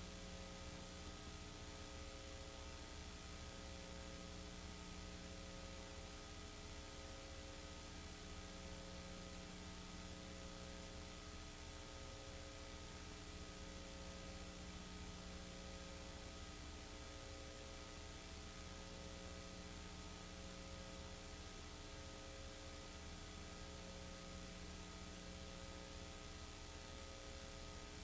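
Steady low hiss with electrical hum from the recording chain, and faint tones pulsing on and off every couple of seconds. No other sound.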